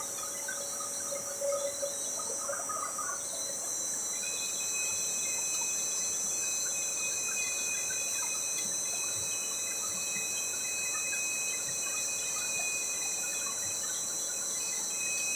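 Steady, high-pitched whine from a running plastic pipe extrusion line, several thin tones held over a low machine noise, with another tone joining about four seconds in.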